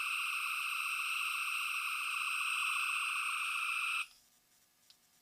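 Electronic phaser-firing sound effect from a Star Trek original-series hand phaser replica on FX setting 3: a steady, high, slightly warbling tone with overtones that cuts off suddenly about four seconds in.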